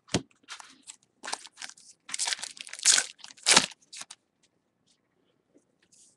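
Foil trading-card pack wrapper being torn open and crinkled: a run of irregular ripping and crackling that stops about four seconds in.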